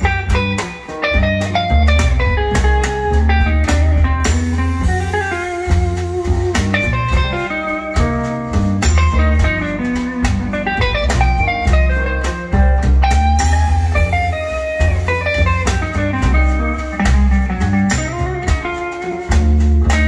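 Recorded music played back through a pair of Mon Acoustic SuperMon bookshelf loudspeakers: an instrumental break with guitar over a deep, steady bass line.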